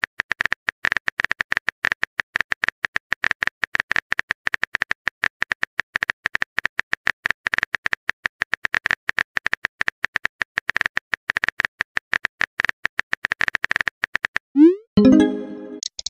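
Simulated phone-keyboard typing sound effect: a fast, uneven run of light clicks. Near the end it stops and a short rising whoosh and a brief pop tone mark the message being sent.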